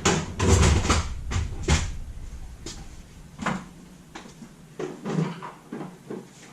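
Knocks and clatter of tools being handled while a smaller torque wrench is fetched. It is loudest and busiest in the first two seconds, then thins to a few separate clicks and knocks.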